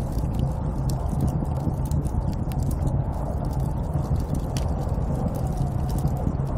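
Steady low rumble of snowstorm wind, dense and unbroken, with frequent small crackling clicks scattered over it.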